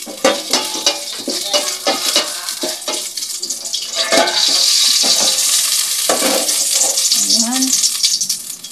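Ginger frying in a stainless steel pot, stirred with a utensil that clicks and scrapes against the metal; about halfway through a loud sizzle takes over.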